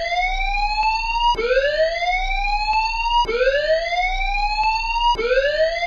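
Electronic whooping alarm: a rising tone that sweeps up and restarts about every two seconds, sounding an intruder alert.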